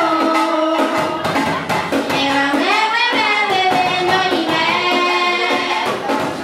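A girl singing into a microphone over drums beaten with sticks, with the voice's pitch bending and holding between phrases.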